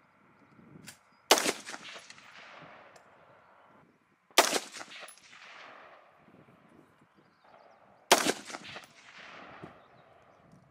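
An AR-15 rifle fired three single, deliberately spaced shots, about three to four seconds apart, the first about a second in; each crack is followed by an echo fading out over a second or so.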